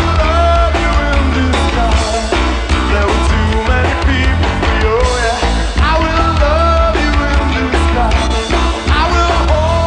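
Live rock band playing loud and steady: electric guitar, bass and drums, with a heavy low end and a wavering melody line over it.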